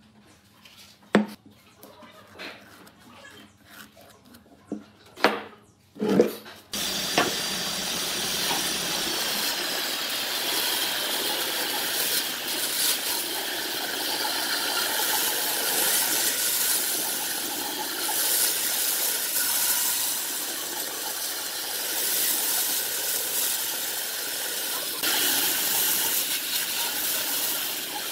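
A few sharp knocks as a log section is handled on a wooden workbench. About seven seconds in, a bandsaw starts running steadily, its blade cutting through the thick log.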